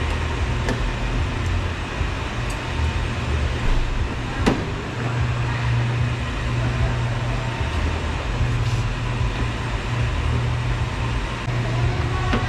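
Steady low rumble of a running vehicle, with a few light clicks and a sharper click about four and a half seconds in.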